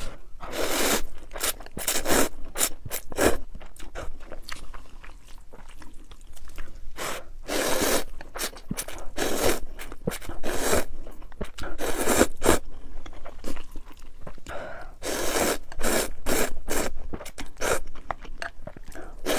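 Irregular crunching and scraping noises, a burst every second or so, each lasting well under a second.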